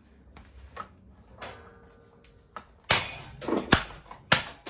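Parts of a cheap ceiling fan being smashed. Quiet small clicks and a faint brief ringing tone give way, about three seconds in, to four hard knocks and cracks in quick succession.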